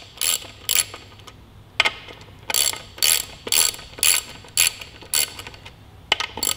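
Hand ratchet wrench clicking in quick back-and-forth strokes, about two a second, with a short pause about a second in. It is working the locking nuts on a motorcycle's rear sprocket.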